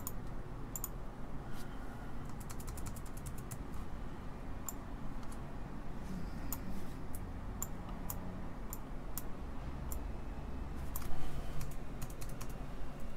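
Typing on a laptop keyboard: irregular key clicks, with a quick run of keystrokes about two and a half seconds in and a louder bump near the end.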